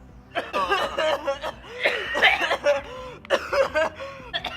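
Laughter: a person chuckling and snickering in several short bursts.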